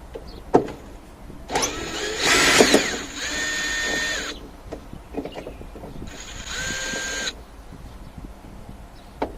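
Cordless power drill-driver running twice, about a second and a half in for nearly three seconds and again near seven seconds for about a second. Each time the motor pitch climbs, then holds steady as it spins, the sound of a fastener being driven out during dashboard removal. A few light knocks of hand work come in between.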